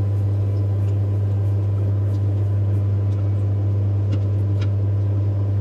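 Steady low machine hum throughout, with a few light clicks about four seconds in.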